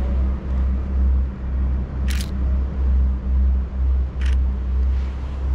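Nikon Z6 mirrorless camera shutter firing twice, two short clicks about two seconds apart, over a low, gusting wind rumble on the microphone.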